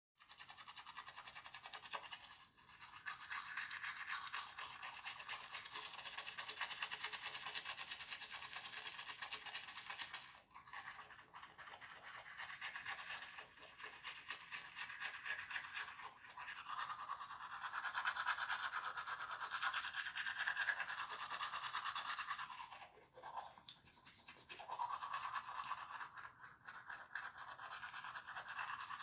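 Toothbrush scrubbing teeth in quick back-and-forth strokes, with brief pauses and a longer break about four-fifths of the way through.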